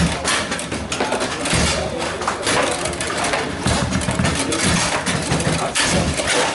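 Table-football play: a rapid, irregular series of sharp knocks and clacks as the ball is struck by the figures and the rods bang against the table, over a steady background din.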